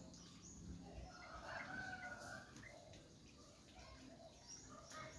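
Faint bird calls: a few short pitched calls, the clearest about one and a half to two and a half seconds in.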